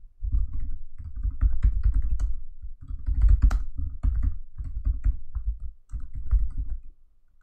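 Typing on a computer keyboard in several quick bursts with short pauses between them.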